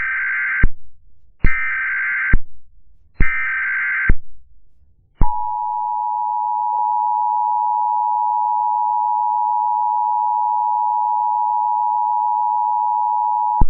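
Emergency Alert System SAME header: three short bursts of digital data screech, each just under a second. About five seconds in comes the EAS two-tone attention signal, a steady dual tone held for about eight seconds. Together they signal the start of an emergency alert, here a severe thunderstorm warning.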